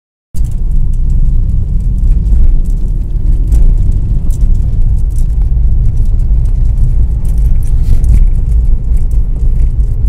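Car on the move, heard from inside the cabin: a loud, steady low rumble of road and engine noise, with scattered small clicks and rattles.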